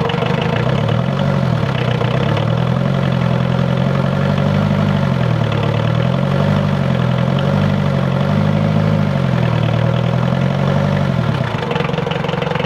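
Mitsubishi 4D56 four-cylinder diesel engine running at idle just after a hard start, its injection pump timing advanced by one gear tooth. A low hum in its sound rises and falls in slow swells about every two seconds, then settles near the end.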